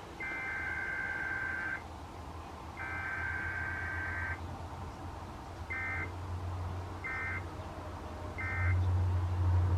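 NOAA Weather Radio SAME digital data bursts for a Required Weekly Test, a shrill two-tone warbling screech. Two long header bursts of about a second and a half each are followed by three short end-of-message bursts about a second apart, over radio hiss and a low hum that grows louder near the end.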